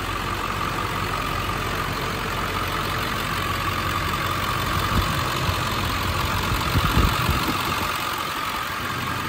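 Ford 7.3L Power Stroke turbo-diesel V8 idling steadily, heard from the open engine bay, with a steady high whine over the engine sound.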